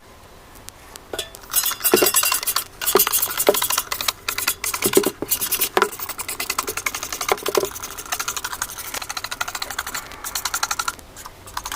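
Close-up scrubbing and rubbing on a washing machine during cleaning: fast runs of short scratchy strokes, with a few duller knocks scattered through.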